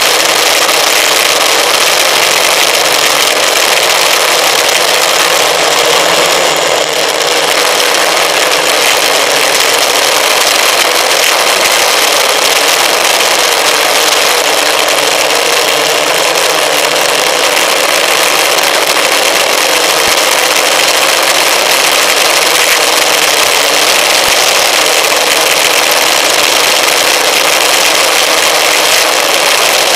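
Electric motor and propeller of an FPV model aircraft running steadily in flight, a loud even noise mixed with wind rush, heard through the aircraft's onboard camera microphone.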